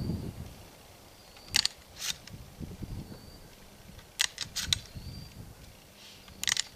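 Sharp metallic clicks and clacks of a 12-gauge shotgun being handled between shots, a few single clicks and then a quick cluster near the middle, like shells and the action being worked.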